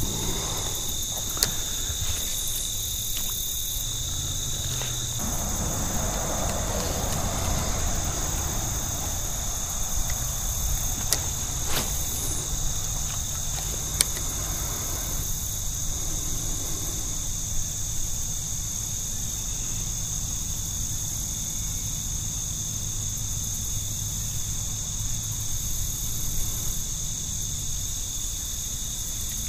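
Evening chorus of crickets or other insects, a steady high trill throughout, over a low steady hum, with a few sharp clicks here and there.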